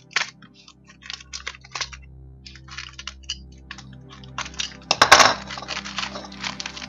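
Plastic mailer bag crinkling and crackling in short clicks as a utility knife slits the taped seam. About five seconds in comes a louder burst of crackling and clatter as the knife is put down on the desk and the bag is handled.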